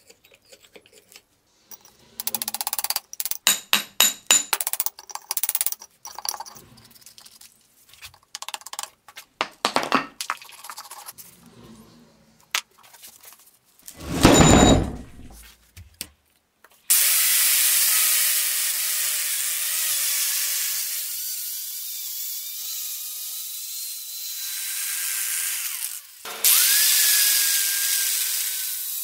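Steel rod scraping and clinking inside the holes of a rusty cast iron swage block, with one loud scrape lasting about a second and a half about 14 s in. From about 17 s an angle grinder with a wire wheel runs against the cast iron block, stripping rust with a steady whirring grind. It drops out briefly just after 26 s and starts again.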